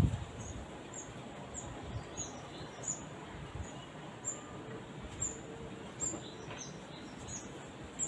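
A small bird calling a short, high, falling chirp over and over, about two a second, with a soft low thump near the start and another near the end.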